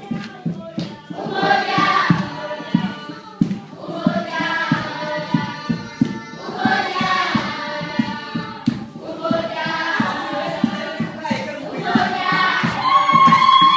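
Background music: a choir singing over a steady, quick beat.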